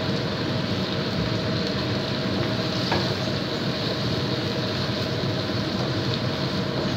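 Coconut-milk chicken curry simmering in a wok while a wooden spatula stirs it, over a steady background hum, with one light knock about three seconds in.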